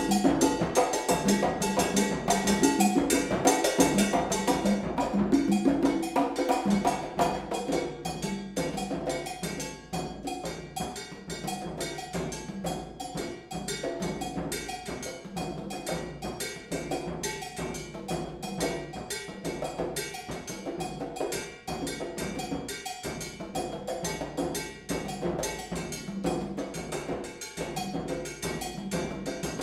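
Computer-generated percussion ensemble from the Kinetic Engine V3 generative music system: many layered drum and wood-block patterns interlock in a dense, fast rhythm. It gets quieter about seven seconds in.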